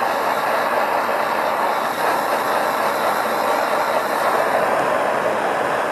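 Hose-fed propane torch burning with a steady hiss as its flame plays over a green bamboo stalk to heat-treat it.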